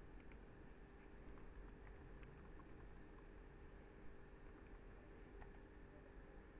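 Faint, irregular keystrokes on a computer keyboard as text is typed into a form, over a steady low hum.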